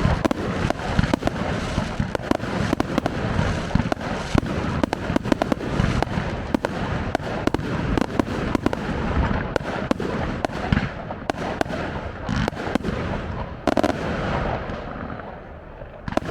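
Fireworks display: a dense, rapid run of aerial shell bangs and crackling bursts, thinning out and getting quieter in the last couple of seconds.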